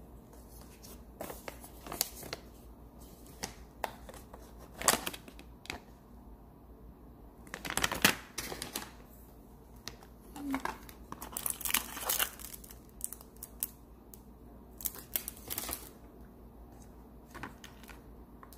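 Plastic packaging and paper crinkling and rustling in irregular bursts, with light clicks and knocks as small robot-kit parts are handled in a clear plastic storage box. The loudest rustles come about five and eight seconds in.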